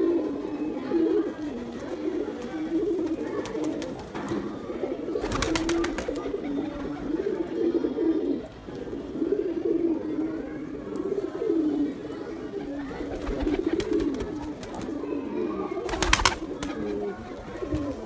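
Domestic pigeons cooing almost without a break in low, rolling coos, the sound of a male puffed up and driving at another pigeon. Two short flurries of wing flapping cut through, about five seconds in and again near sixteen seconds.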